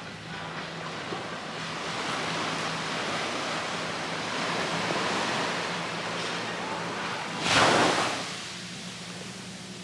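Surf washing onto a beach, swelling and easing, with one short, louder rush about three-quarters of the way through.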